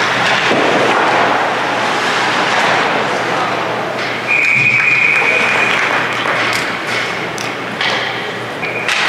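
Ice hockey game in an arena: a steady din of crowd voices and rink noise with scattered sharp knocks, and a referee's whistle blown once for about a second and a half about four seconds in, with a short second whistle near the end.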